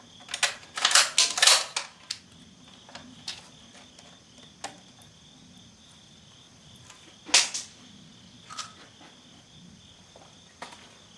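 Metallic clacks of a Centurion BP12 12-gauge bullpup shotgun's action being worked by hand to clear a misfed shell: a quick run of sharp clacks in the first two seconds, then a single loud clack with a lighter one about seven seconds in. The gun is misfeeding, its shells catching on the feed.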